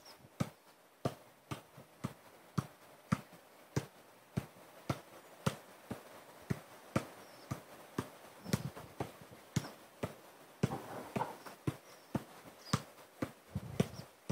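Football being juggled, kept up off the feet and knees: a steady run of short thuds, a little under two touches a second.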